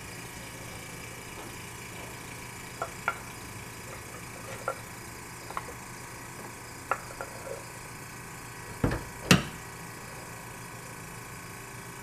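GE Monitor Top refrigerator's domed compressor running with a steady hum just after start-up. Light clicks and taps come from the brass gauge-manifold fittings being handled, and two louder clunks come about nine seconds in as the cabinet door is unlatched.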